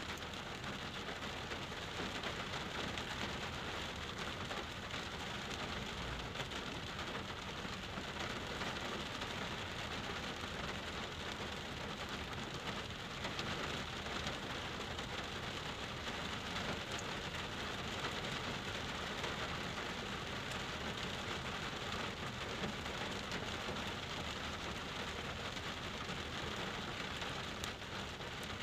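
Steady rain falling on a car's windshield and body, heard from inside the cabin.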